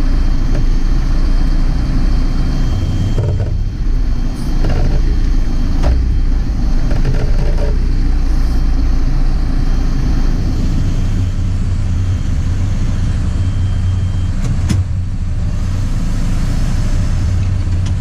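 JCB 4CX backhoe loader's diesel engine running steadily, heard from inside the cab while the backhoe arm works, with a few short clanks along the way.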